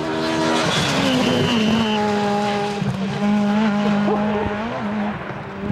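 Rally car passing at speed: a sudden rush of noise as it comes by, then its engine holding a steady high-revving note for several seconds. A thin high-pitched squeal rides over it for about a second near the start.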